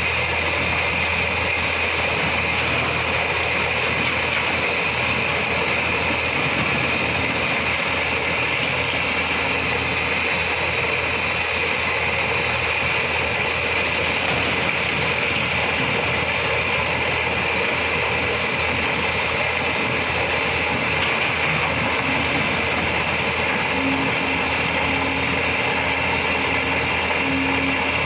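Excavator at work: the diesel engine runs steadily under a continuous mechanical rattle and clatter.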